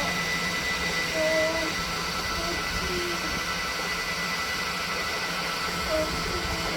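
Elegoo Neptune 4 Pro 3D printer running mid-print: a steady fan whir with a faint high whine, and a few brief faint tones now and then.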